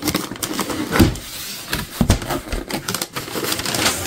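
A cardboard box lid being lifted open and the tissue paper inside being handled: irregular crackles and rustles of card and paper, with a couple of dull knocks about one and two seconds in.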